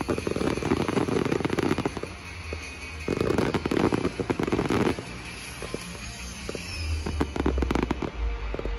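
Fireworks going off: two long stretches of dense, rapid crackling, then scattered separate pops and low booms near the end.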